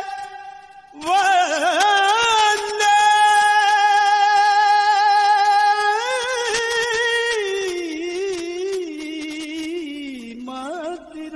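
A solo high voice sings a slow, wordless melody with wavering ornaments and long held notes. It drops out for under a second near the start, drifts lower in pitch toward the end, and rises again in a short phrase at the close.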